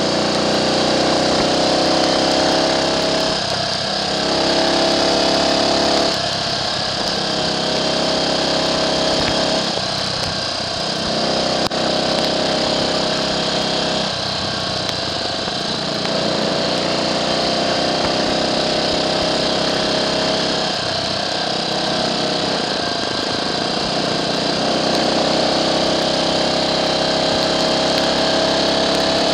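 Small single-cylinder four-stroke engine of a Triumph Trials Cub motorcycle under way, its note climbing and dropping back several times as the throttle is opened and closed, then holding steadier in the second half. A steady hiss of wind and wet road runs underneath.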